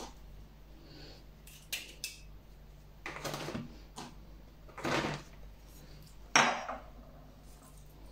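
A kitchen knife clinking and scraping on a ceramic plate while garlic is cut, with a plastic zip-lock bag being handled. There are about half a dozen separate sounds with quiet gaps between them, and the sharpest comes about six seconds in.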